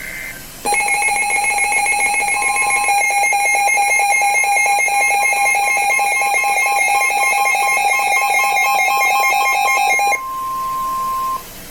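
Emergency Alert System attention signal: a loud, steady two-note electronic alert tone lasting about nine seconds. When it stops, one higher tone holds alone for about another second and then cuts off. It signals that a severe weather warning is about to be read.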